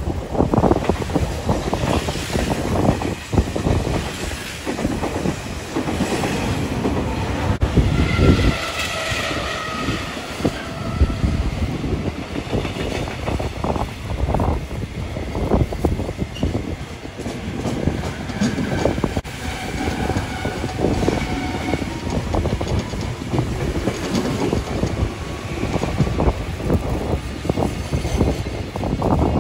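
Trains running past on the tracks: a Meitetsu 1800-series electric train going by close, then a container freight train hauled by an EF210 electric locomotive, with a steady wheel rumble and repeated clacking over rail joints. A high steady tone sounds for a few seconds about eight seconds in.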